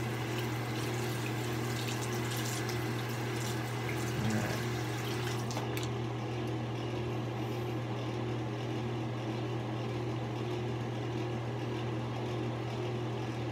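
Steady low hum with a hiss like running tap water over it; the hiss cuts off about six seconds in, leaving the hum.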